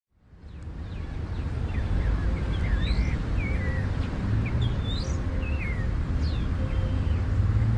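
Birds chirping in short, separate sweeping notes over a steady low rumble of outdoor background noise. The sound fades in during the first second or so.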